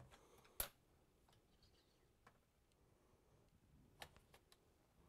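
Light, sparse clicks of Gravitrax plastic marble-run parts being handled and reset by hand. There is one sharp click about half a second in, a few faint ticks after it, and another clear click about four seconds in.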